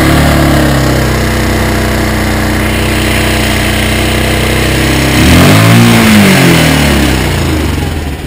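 Kymco MXer 150 quad's single-cylinder four-stroke engine held at raised revs under throttle, then revved up and back down about five seconds in, easing off near the end. It is running smoothly on its test start after a fuel filter change.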